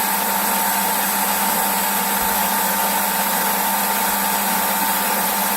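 miniTECH X3 benchtop milling machine's spindle motor running at steady speed with a steady high whine and a lower hum.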